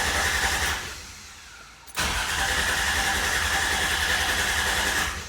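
1995 Toyota 4Runner's 3.0 V6 cranking over on the starter without catching, in two tries: the first stops about a second in, the second starts about two seconds in and runs until near the end. The engine cranks but won't fire: there is no spark at the coil, which the owner puts down to the ECM getting no signal or being bad.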